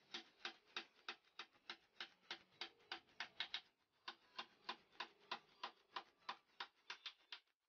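Hammer driving nails through a wooden tabletop into the legs beneath: quick, even strikes at about three a second, with a short pause a little under four seconds in.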